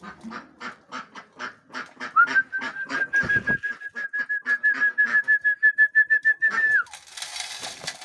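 A person whistling one steady high note held for about four seconds, over a quick run of clicks about five a second, with a dull thump about three seconds in.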